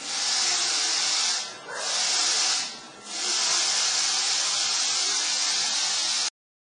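Loud, steady hiss in three long stretches separated by two brief dips, cutting off abruptly near the end.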